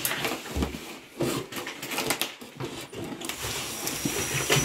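Cardboard surprise compartments of a Barbie Color Reveal package being peeled and torn open by hand: irregular rustling, scraping and small taps, with a low thump about half a second in.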